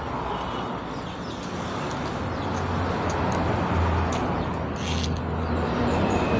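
A motor vehicle's engine passing close by, its noise and low hum swelling steadily louder. A few faint clicks come over it.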